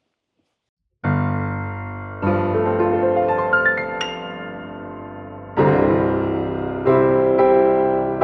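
Solo piano music: a chord struck about a second in and left to ring, a quick rising run of high notes, then further chords.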